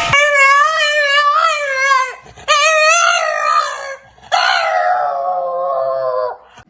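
Dog howling in three long calls with a wavering pitch, begging for food.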